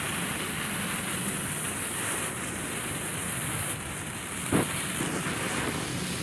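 Small Lesli 'Hundehaufen' novelty ground fountain firework burning with a steady rushing hiss as it sprays sparks and smoke. One sharp pop comes a little over four and a half seconds in.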